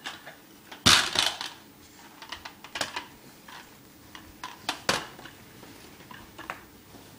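Clicks and knocks of a red plastic pull-along toy squirrel being picked up and handled by a toddler, the loudest clatter about a second in and more knocks around three and five seconds in.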